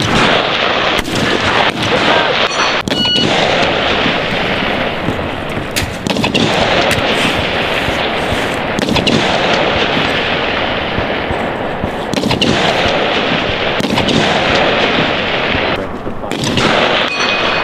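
Rifle fire on a shooting range: many sharp shots at irregular intervals over a steady rushing noise.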